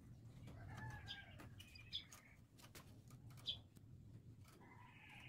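Near silence, with faint chicken clucking and a few light clicks.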